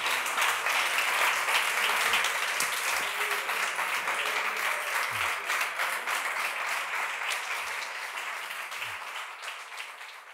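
Audience applauding after a flamenco percussion piece, a dense, even patter of many hands clapping that gradually fades out near the end.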